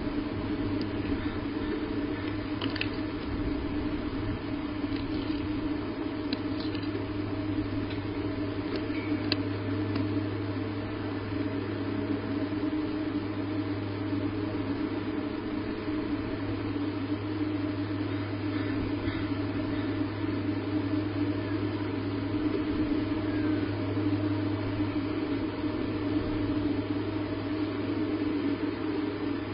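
Steady low hum and hiss on the nest camera's audio, with a few faint clicks in roughly the first ten seconds.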